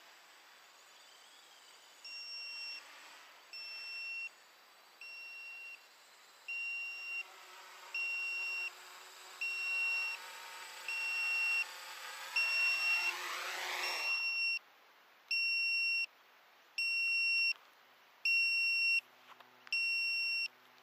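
An electronic buzzer beeping steadily, one long two-tone beep about every second and a half, over the whine of a quadcopter's brushless motors (Multistar 2209-980KV with 10x4.5 props). The motor whine rises and then cuts off suddenly about two-thirds of the way through as the quadcopter settles and its motors stop, leaving the beeping alone.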